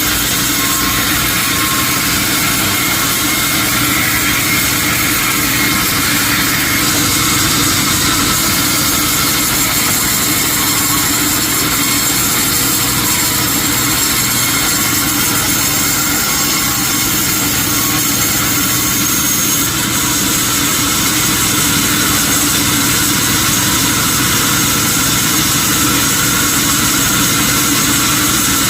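Sawmill machinery running steadily and loudly: a constant mechanical drone with several held tones under a wide hiss, changing slightly in its high part about a quarter of the way in and again about two thirds in.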